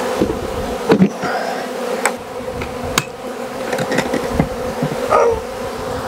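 Honeybees from a strong, agitated colony flying in large numbers around the hive: a steady, loud buzzing hum. A few sharp clicks break in about one, two, three and five seconds in.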